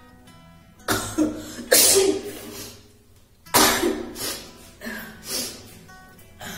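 A woman sneezing loudly: a sharp sneeze about a second in and a second one at about three and a half seconds, then two smaller bursts near the end.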